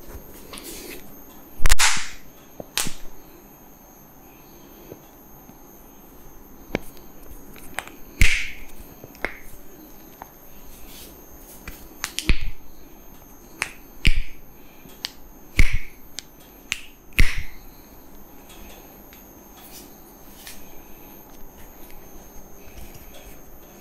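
Sharp hand strikes of a barber's head massage: about eight loud claps and slaps at irregular intervals, the loudest about two seconds in, with quiet rubbing between them.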